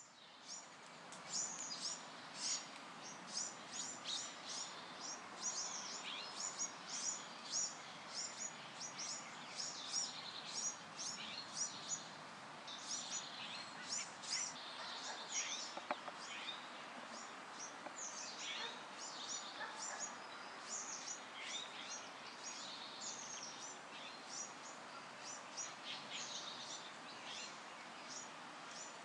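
Birds chirping in quick, repeated high notes, several a second, over a steady background hiss.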